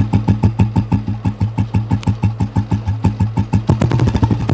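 Old-model Royal Enfield Bullet's single-cylinder four-stroke engine idling, heard right at the exhaust outlet as an even, slow thump of about five beats a second. The beat quickens near the end. The engine is freshly rebuilt with a heavier crank.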